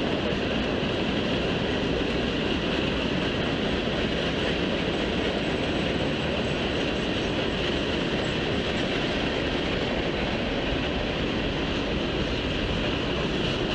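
Freight train cars rolling past: a steady, even noise of steel wheels on rail, heard through a trackside webcam's microphone. A faint high squeal rises over it in the middle.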